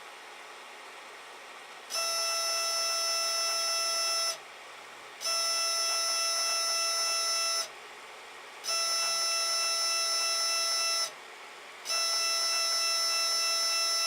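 Protomaker 3D printer's Z-axis stepper motors whining steadily as they turn the threaded rods, in four moves of about two and a half seconds each with pauses of about a second between them.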